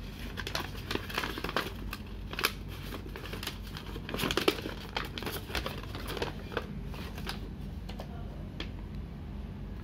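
A large folded paper leaflet being unfolded and handled, crinkling and rustling in irregular bursts, loudest about halfway through.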